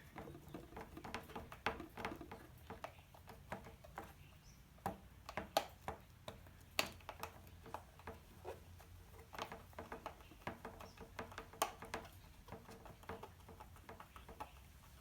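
Irregular small clicks and taps of hand tools against metal parts as screws are fitted and fastened, a few sharper knocks around five to seven seconds in and again near twelve seconds.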